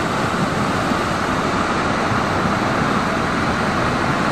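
Steady, loud rush of a flood-swollen river pouring over rocks.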